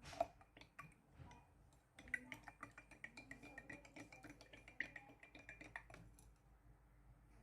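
Metal spoon stirring salt into warm water in a small glass, clinking lightly against the glass: one sharper tap at the start, then rapid faint clinks from about two seconds in that stop about six seconds in.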